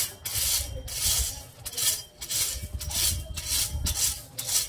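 A rake scraping and dragging through loose gravel in repeated strokes, about two a second, the stones rattling against the tines.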